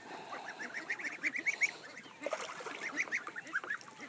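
Two-week-old goslings peeping: short high chirps in quick runs of several notes, with brief gaps between the runs.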